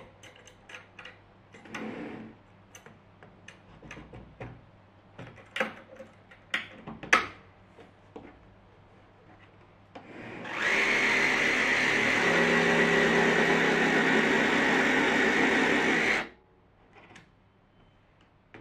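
Plywood parts of a jigsaw cutting jig knocked, slid and clicked into place, a run of scattered knocks. About ten seconds in, a power tool's motor starts, runs steadily with a fixed whine for about five seconds, and stops abruptly; this is the loudest sound.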